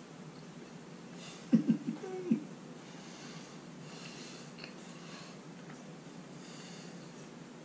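A man tasting a mouthful of food: a few short hummed "mmm" sounds about a second and a half in, then breaths through the nose while he chews.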